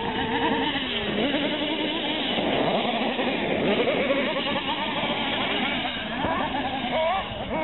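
Several radio-controlled race cars' motors revving, their pitch rising and falling over and over as the cars accelerate and brake around the dirt track.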